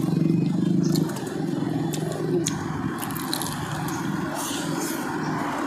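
Soft clicks and smacks of someone biting and chewing a piece of omelette close to the microphone, over a steady low engine hum from traffic that is loudest in the first second.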